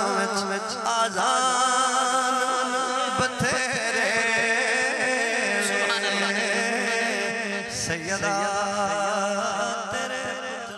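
A man's voice singing Punjabi devotional kalam through a microphone and PA system, drawing out long, wavering melismatic notes without words being clearly formed; the voice trails off near the end.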